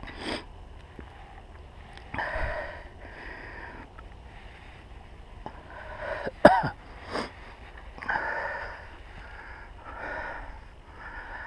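A person breathing hard and sniffing close to the microphone, in a series of short separate breaths, with a brief squeaky sniff about six and a half seconds in as the loudest sound.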